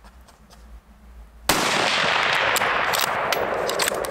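A single shot from a Tikka T3x CTR rifle in .223 about a second and a half in, its report ringing on loudly for a couple of seconds. Sharp metallic clicks follow as the bolt is worked.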